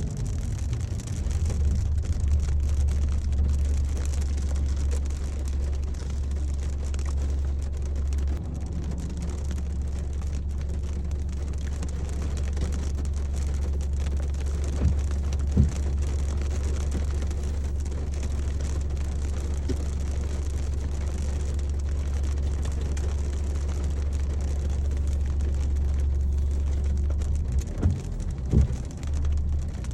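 Inside a car driving in light rain: a steady low rumble of engine and road noise with a faint hiss of rain and wet tyres. A couple of brief knocks come about halfway and near the end.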